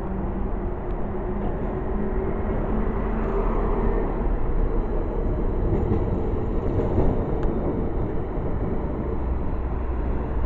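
A W8-class tram passing along the street, its wheels rumbling on the rails, a little louder as it goes by close about halfway through. Steady road traffic runs under it.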